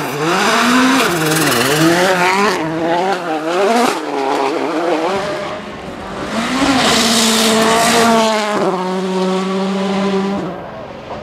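Volkswagen Polo R WRC rally car's 1.6-litre turbocharged four-cylinder engine revving hard. For the first few seconds the pitch climbs and drops quickly through gear changes and lifts; later it holds a steady high pitch, steps down once, and fades near the end.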